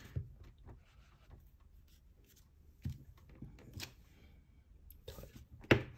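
Faint paper rustling and light taps as a clear acrylic stamp block is pressed onto paper and lifted, with a sharp click near the end.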